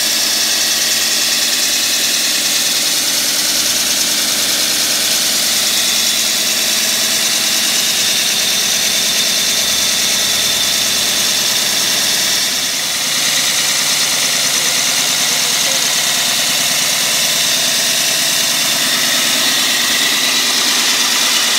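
Concrete core drill's motor running steadily, a loud, even noise that dips slightly a little past halfway.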